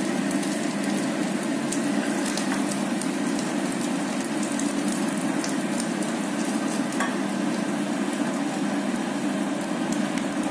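Potato pieces frying in hot mustard oil in a kadai: a steady sizzle with many small crackles, as the pieces are scooped out with a plastic slotted spatula.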